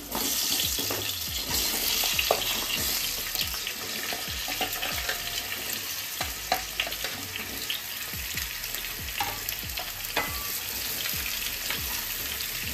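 Pumpkin pieces sizzling as they are dropped into hot mustard oil in a kadai. The hiss is brightest over the first few seconds and runs on steadily, with scattered light knocks of pieces and a spatula against the pan.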